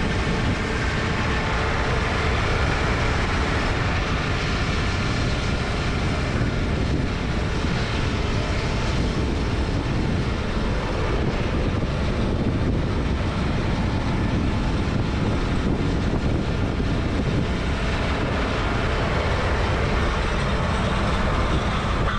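Heavy diesel harvest machinery running steadily, such as the tractor and beet harvester working in a sugar beet field.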